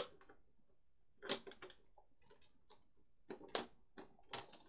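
Hard plastic parts of a toy Beyblade stadium being handled and snapped together: a handful of short clicks and clacks, scattered irregularly, with several close together near the end.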